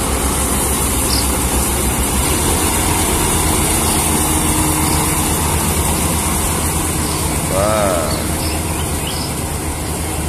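FMWorld rice combine harvester running steadily, its engine and threshing machinery going together as a loud, even mechanical drone.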